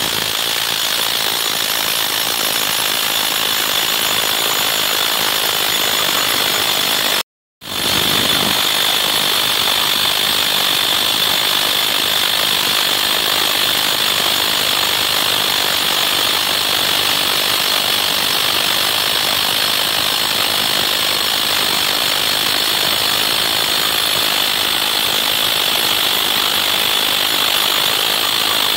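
Chicago Pneumatic CP 0009 pneumatic rotary hammer, fitted with a muffler, drilling into hard rock. It runs steadily, with a brief break about seven seconds in.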